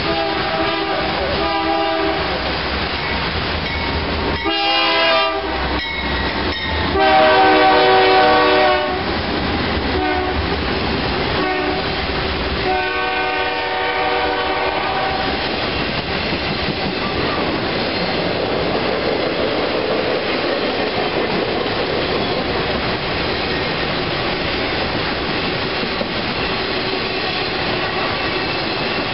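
Diesel locomotive horn on an approaching intermodal freight train, sounding several blasts over about fifteen seconds, the loudest about seven to nine seconds in. After the horn stops, the steady rolling and wheel clatter of the passing flatcars with truck trailers.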